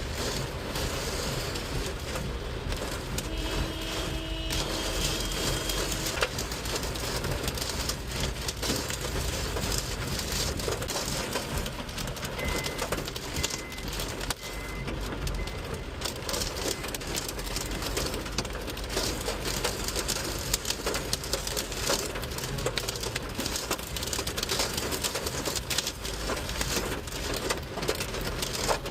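Hailstorm: hailstones pelting down steadily, a dense rattle of many small impacts.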